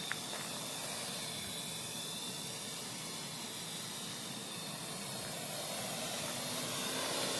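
Parrot AR.Drone quadcopter's four rotors whirring in flight, a steady hiss-like whir with a faint high tone, growing slightly louder near the end.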